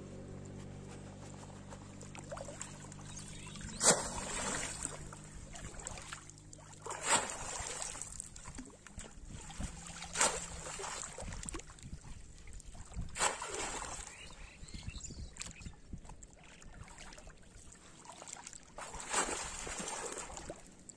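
Bamboo polo fish trap slammed down into shallow muddy water again and again: five sharp splashes about three seconds apart, with water sloshing around the wader's legs in between. A low steady hum fades out in the first few seconds.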